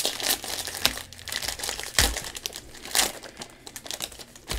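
Plastic wrapper of a football trading card pack crinkling in gloved hands as the pack is ripped open and the cards pulled out, with irregular crackling and a few sharper rustles.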